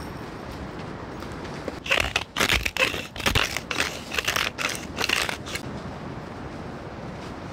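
Knife scraping and crunching across crisp toasted bread: a quick run of about ten rough strokes lasting some four seconds.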